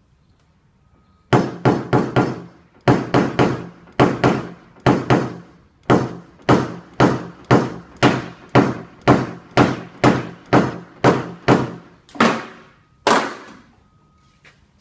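Repeated sharp taps on a car's sheet-metal panel during paintless dent repair, each with a short ring. They come first in quick clusters of three or four, then at a steady two or so a second, ending with two slower taps.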